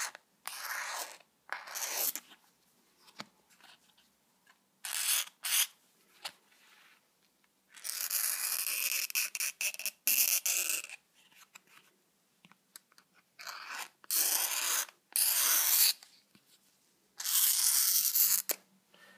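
Razor blade scraping along the edge of a guitar pickguard to round it off: about fifteen scraping strokes of varying length, the longest about two seconds, with short pauses between them.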